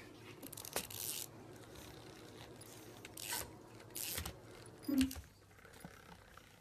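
Pug puppy chewing and tugging at a plush toy: scratchy rubbing and ripping of the fabric in short bursts, loudest about five seconds in.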